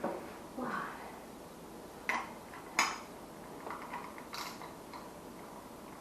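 Light metallic clinks and knocks of small parts and hand tools being handled, with two sharp ones about two and three seconds in and softer rattles around them.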